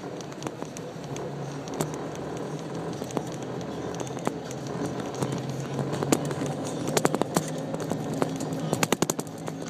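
Golf cart driving along: a steady low hum with road noise, broken by many sharp clicks and rattles that bunch together twice in the second half.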